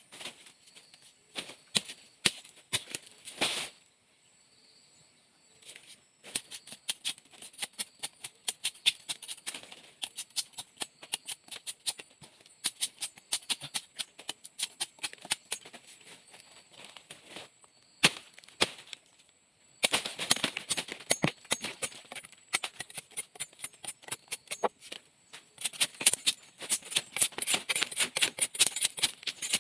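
Dry leaves and vegetation crackling and rustling in rapid, irregular clicks. They are sparse at first and become dense and louder about two-thirds of the way through.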